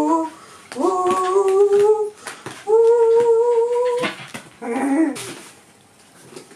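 Shiba Inu whining: two long, drawn-out high whines of a bit over a second each, then a shorter one near five seconds in.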